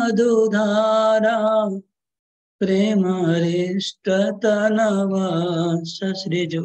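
A man chanting Sanskrit verse in a slow, melodic recitation, holding long notes. The chant breaks off for under a second about two seconds in, then resumes.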